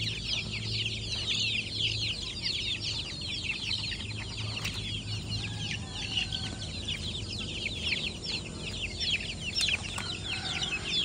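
A flock of young kampung chickens peeping continuously: many short, high, falling peeps overlapping at once. A few lower calls come in around six seconds in and near the end.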